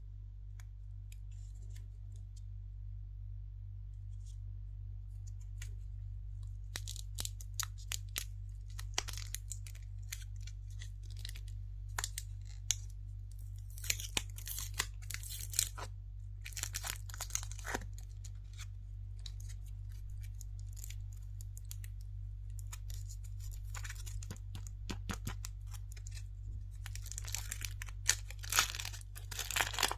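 Wrapper of a surprise egg being torn open and crinkled: sparse crackles at first, then dense spells of tearing and crinkling, the busiest near the end. A steady low electrical hum runs underneath.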